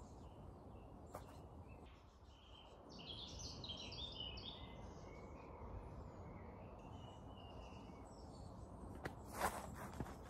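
Woodland ambience: a low steady rumble with birds chirping a few seconds in, then a few footsteps on the dirt path near the end.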